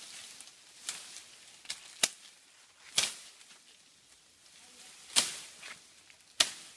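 Machete chopping into a thin green sapling trunk: a series of sharp chops at uneven intervals, about a second apart, some harder than others.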